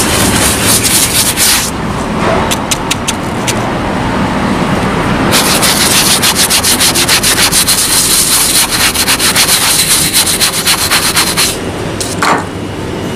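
A brush scrubbing a suede boot with cleaning gel, in quick back-and-forth strokes a few times a second. The strokes thin out to a few single ones about two seconds in, then pick up again in a long run from about five seconds in.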